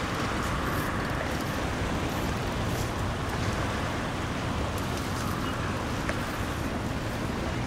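Steady wind noise on the microphone over a low, even rumble, with no distinct engine note or knocks standing out.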